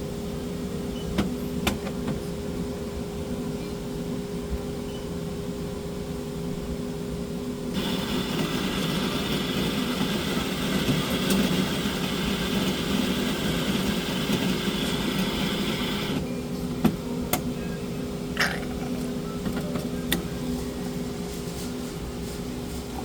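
Coffee machine humming, then dispensing with a steady whirring hiss for about eight seconds before cutting off; a few sharp clicks before and after.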